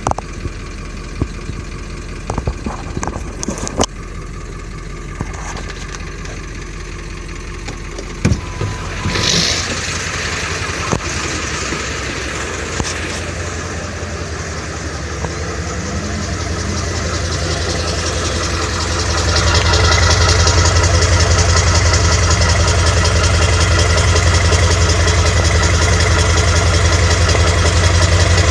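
2000 Ford F-550's 7.3 L Power Stroke V8 diesel. For the first eight seconds there is a low steady hum with scattered clicks. About nine seconds in the sound changes with a short burst, and the engine then runs with a steady rhythmic note that grows louder about twenty seconds in. The truck is slow to start, which the owner puts down to injectors needing replacement.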